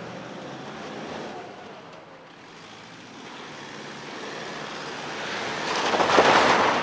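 A vehicle passing by, a rushing noise that swells to its loudest about six seconds in and then begins to fall away.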